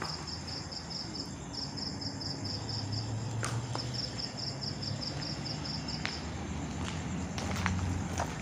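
A cricket chirping in a fast, even pulse of about five chirps a second, pausing briefly twice and stopping about six seconds in, over a low steady hum.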